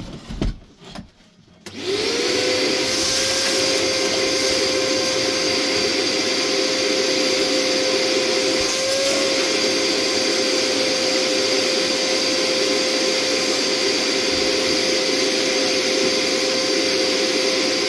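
A couple of knocks, then a vacuum cleaner switched on about two seconds in, running steadily with a held hum, its hose held to a cored hole in a brick wall to suck out the dust.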